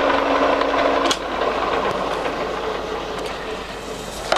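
Colchester Triumph lathe's geared headstock running at 96 RPM with a steady whine. About a second in the whine stops and the running noise slowly dies away as the spindle winds down, with a sharp click near the end.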